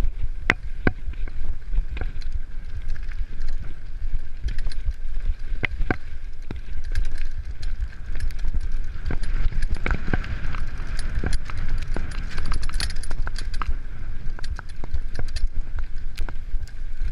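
29er mountain bike ridden fast over a dirt singletrack, heard from a camera mounted on its handlebars: a constant low wind-and-tyre rumble with frequent sharp rattles and knocks as the bike jolts over bumps.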